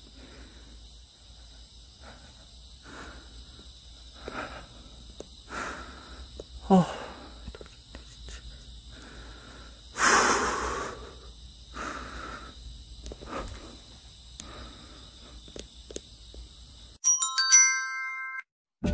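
Crickets chirping steadily in a night yard, with soft footsteps about every second and a half and a loud breathy rush of noise about halfway through. Near the end a short run of glockenspiel-like chime notes plays.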